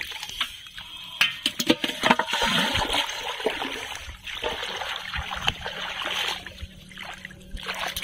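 Hands splashing and sloshing in shallow pond water among floating water hyacinth, a run of irregular small splashes.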